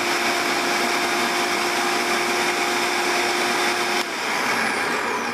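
Food processor motor running steadily while pureeing a thick mango and habanero mixture, then switched off about four seconds in and winding down.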